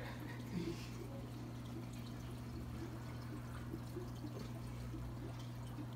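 Aquarium water bubbling and trickling steadily as the tank's aeration and filter run, over a low steady hum.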